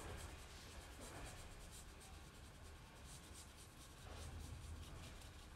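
Faint, quick scratchy strokes of a wet paintbrush rubbing across paper, blending water-softened pastel on the drawing.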